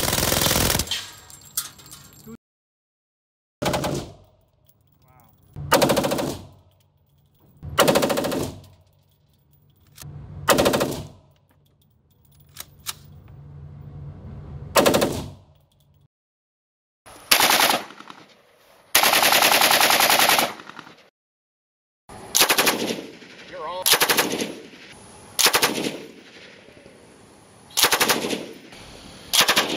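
Bursts of fully automatic gunfire. First come about six short bursts from a rifle at an indoor range. Then a belt-fed M240B machine gun on a bipod fires about seven bursts, one of them about two seconds long.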